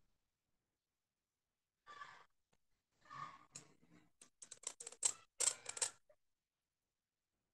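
A couple of short breaths close to the microphone, then a quick run of sharp, dry clicks and scratches lasting about a second and a half.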